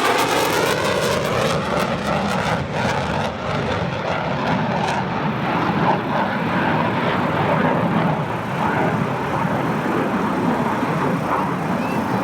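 Jet noise from a Boeing C-17 Globemaster III's four turbofan engines, a loud steady rush. It swells in just before the start and has a sweeping, phasing quality in the first couple of seconds, as the aircraft passes close.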